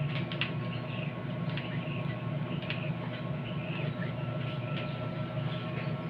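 Twin-tub washing machine's wash tub agitating: a steady motor hum with irregular splashing and sloshing of water and clothes. The machine is broken and keeps turning without stopping.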